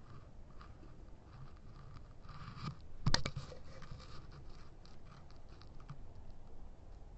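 Faint scratchy rubbing and ticking of fingers handling a handheld recording device, with a short cluster of sharp clicks about three seconds in.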